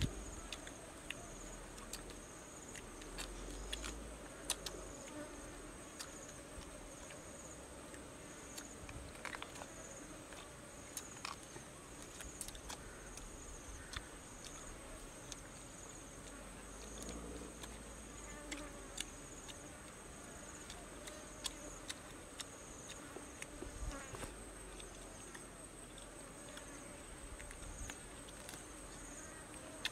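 Insects calling steadily in the background: a continuous high-pitched trill with a second, pulsing call repeating about once a second. Faint scattered clicks and taps sound over it.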